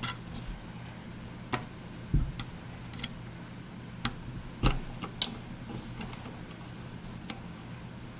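Scattered sharp clicks and a couple of low knocks of a hand tool and small metal parts being handled as the old quiver mount is taken off a bow.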